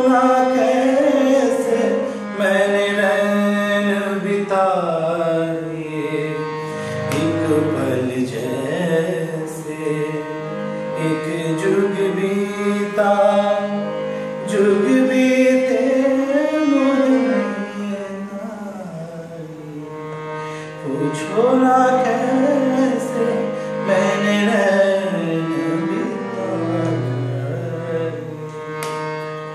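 A man singing a slow, ornamented Hindustani melody in raga Ahir Bhairav, accompanied by sustained chords on a harmonium.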